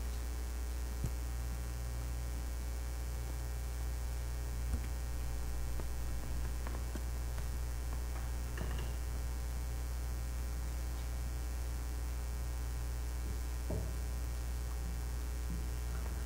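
Steady low electrical mains hum, with a few faint small knocks and rustles scattered through it.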